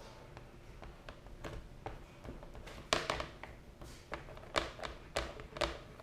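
Scattered light taps and clicks of hands handling a plastic number plate while smoothing a vinyl decal onto it, a few louder ones in the second half.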